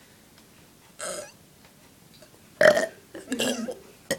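A person burping: a short sound about a second in, then a louder burp lasting about a second.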